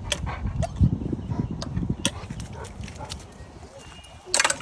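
Dogs meeting at close range, making low rumbling, pulsing noises for the first couple of seconds, with a short, sharp sound near the end.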